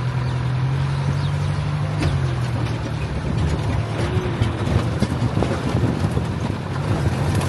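Safari vehicle's engine running with a steady low hum, over road noise and small rattles and knocks. The engine note drops about two seconds in.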